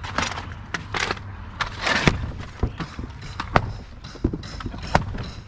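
Wood and wall framing being broken apart during house demolition: irregular cracks, knocks and clatter of boards and debris, with the loudest cracks about one, two and three and a half seconds in, over a low steady rumble.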